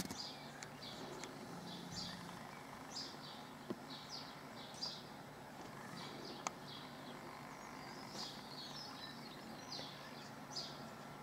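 Small birds chirping, short high calls repeating every second or so over a faint steady low hum. A single sharp click about six and a half seconds in.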